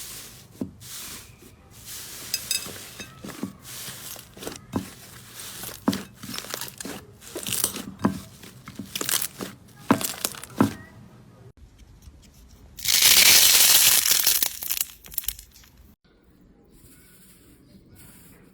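Slime being pressed and worked by hand, giving a run of sharp crackles and pops. About thirteen seconds in, a louder rasping, tearing or crinkling noise lasts for about two seconds, then the sound drops to a faint hiss.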